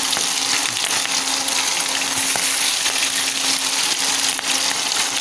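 Egg-dipped chicken pieces frying in hot oil, a steady sizzle.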